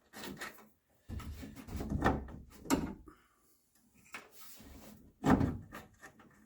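Handling clunks and knocks of a window regulator assembly being worked into place inside a car's rear quarter panel, with a rumbling shuffle and a few sharp knocks, the loudest about five seconds in.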